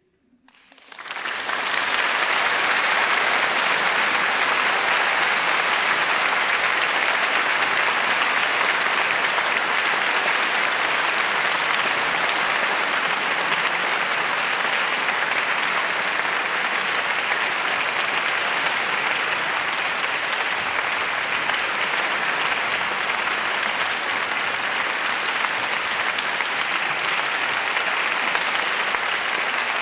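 Audience applause breaking out about a second in after a brief hush, swelling quickly and then holding steady.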